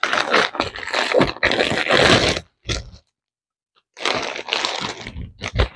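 Plastic mailer bag crinkling and rustling as it is handled and pulled off a plastic-wrapped package. The rustling stops for about a second midway, then resumes with a few sharper crackles near the end.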